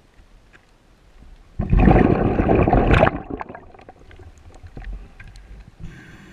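Scuba diver's exhaled breath bursting out of the regulator as a loud rush of bubbles lasting about a second and a half, followed by scattered bubble pops and clicks. Near the end the hiss of the next breath being drawn through the regulator begins.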